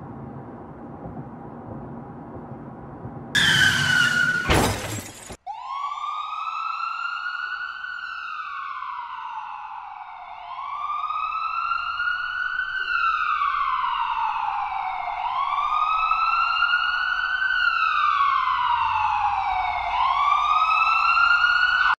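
Car-crash sound effect: a loud screech about three seconds in, ending in a crash that cuts off suddenly. An emergency siren wail follows, sliding slowly up and down in pitch about every five seconds until the end.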